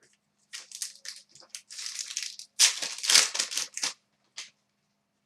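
Trading card pack wrapper crinkling and rustling as a pack is handled and opened, in a run of short bursts that are loudest about three seconds in.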